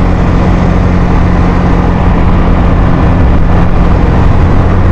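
Suzuki Skydrive scooter's single-cylinder engine running at a steady pitch as the scooter rides along.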